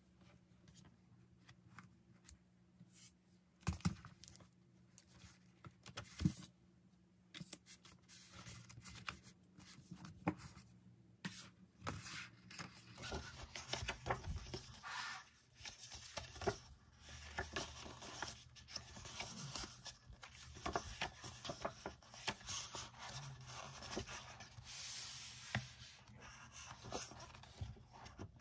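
Handling a hardcover album photobook: a few isolated taps and knocks at first, then, from about halfway, paper rustling and crisp clicks as the stiff glossy pages are opened and turned by hand.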